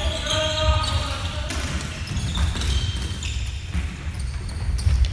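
Sneakers squeaking and running footsteps on a wooden gymnasium floor during a neo hockey game, with short squeaks about a second in and again near the middle, over steady thudding of feet.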